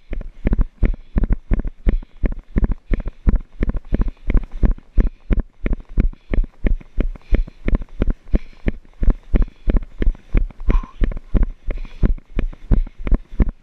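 Running footfalls jolting a body-worn action camera: a steady run of dull thuds, about three strides a second, each stride knocking through the camera.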